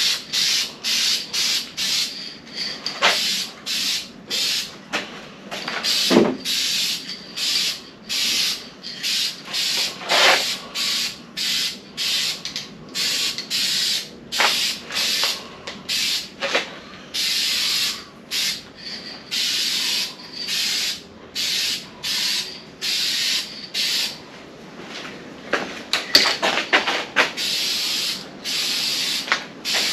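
Aerosol spray can of trim and bumper paint giving many short hissing bursts in quick succession with brief pauses, a first coat going onto scuffed truck mirror housings.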